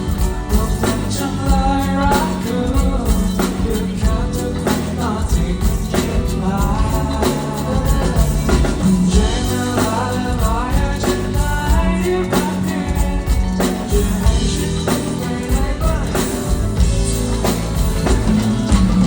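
A male singer singing live over an amplified pop backing track with drums and bass.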